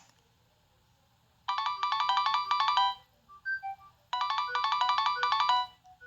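Preloaded Nokia 6610 mobile phone ringtone playing. After a short pause it gives two bursts of rapid trilling electronic tones, each about a second and a half long, with a few single beeps between and after them.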